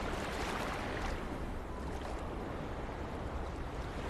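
Steady rush of surf and wind at a sandy beach, with a low wind rumble underneath.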